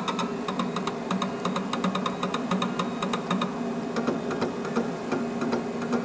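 Vinyl cutter's motors jogging the cutting head and material in short steps, a rapid, uneven series of clicks with a faint whine, as its LED pointer is lined up on a registration mark for contour cutting.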